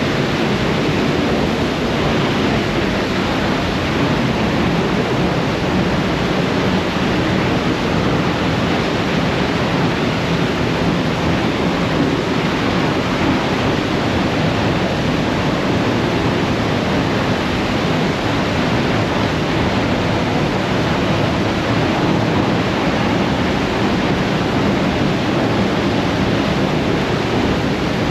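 Steady, loud rushing of a waterfall's falling water.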